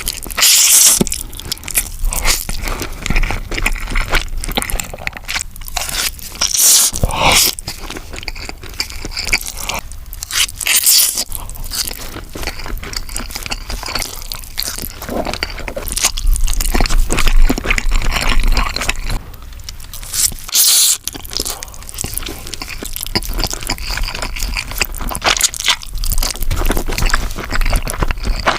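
A person eating close to the microphone, with repeated crisp crunching bites and chewing at an irregular pace.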